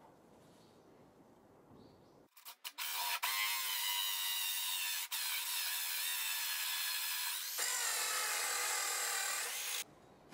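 Cordless drill turning a toothed hole saw through a wooden board. It starts a couple of seconds in with a few short trigger blips, then cuts steadily with a whining tone, with one brief pause about halfway, and stops suddenly near the end.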